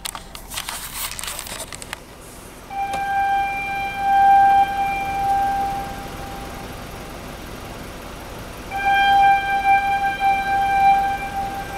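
Warning horn for rock blasting giving two long, steady tones of one pitch, each about three seconds, a few seconds apart: the signal that a blast is about to be fired at the quarry. A short rush of noise comes before the first tone.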